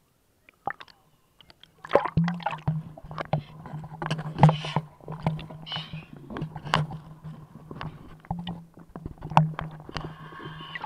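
Boat engine heard through the water as a steady low hum, starting about two seconds in. Water splashes and knocks from the camera bobbing at the surface sound over it, loudest around the middle.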